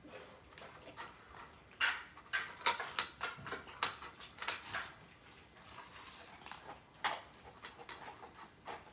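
A group of cats eating wet cat food from bowls on a tile floor: irregular smacking and licking sounds, with light knocks of the bowls. The sounds are busiest from about two to five seconds in.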